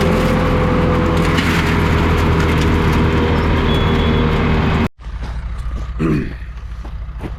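Heavy-equipment diesel engine running loud and steady; about five seconds in it cuts off abruptly, and a quieter engine idles after.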